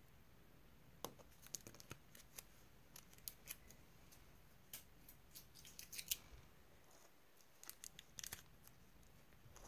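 Small spring-action thread snips clicking and cutting in short, scattered snips, in clusters, as tape is picked and cut away from under the button stitching.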